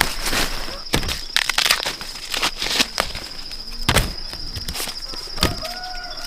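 Irregular knocks and rustling, as of someone walking or handling things outdoors, over a steady high insect trill.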